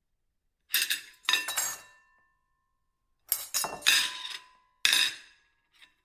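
Ceramic plate clattering in sharp clinks: two hits about a second in, a quick run of several around the middle, and one more near the end. Some of the hits leave a brief ring.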